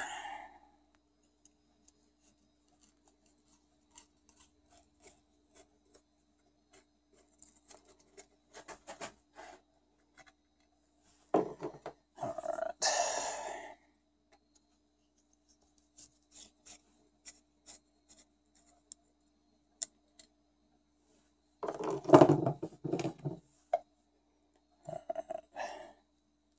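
Hand tools and metal parts clicking, clinking and scraping as the valve cover is unbolted and worked off a Tecumseh small engine, with three louder bursts of handling noise. A faint steady hum runs underneath.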